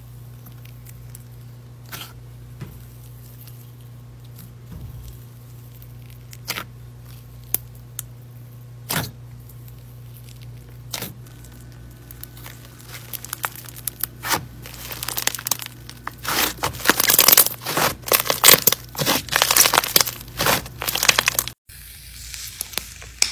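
Cloud slime with crunchy black bits crackling as it is pressed and stretched. At first there are scattered single pops; from about two-thirds of the way in it breaks into dense crackling and tearing as the slime is pulled apart. It stops abruptly near the end, where fainter handling sounds follow.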